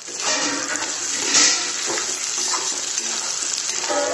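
Bell pepper strips sizzling loudly in hot oil and onion masala in a steel kadhai over high flame. A steel spatula stirs through them and scrapes against the pan a few times. The sizzle jumps up just after the start and stays steady.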